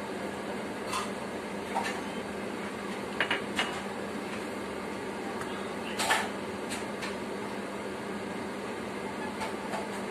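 Steady kitchen hum with a handful of light clicks and knocks as a small bowl and a soy sauce bottle are handled over the dish, the loudest knock about six seconds in.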